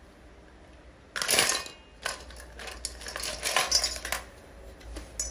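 Handling noises as a baby monkey is dressed on a quilt: rustling and scraping of cloth with small clinks. The loudest burst comes about a second in, followed by a run of shorter rustles.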